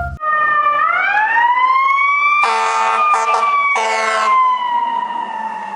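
Fire engine siren wailing, rising for about two seconds and then falling slowly. Three horn blasts sound about halfway through.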